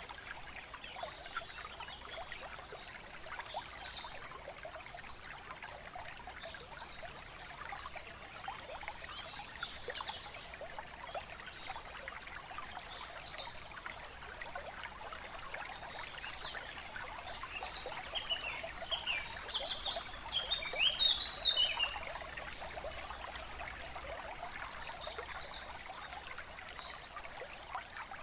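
Steady trickling of running water, like a small stream, with birds chirping over it; a louder flurry of bird chirps comes about twenty seconds in.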